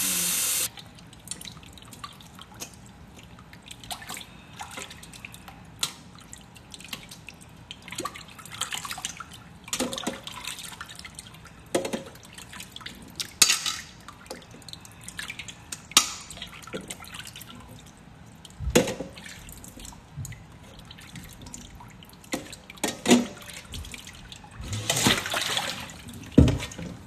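Hot water running from a kitchen tap into a stainless-steel bowl of pork ribs, shut off about half a second in. Then scattered splashes, drips and light metal knocks as the ribs are lifted from the water into a metal colander, and near the end a brief rush of water as the bowl is tipped out into a steel sink.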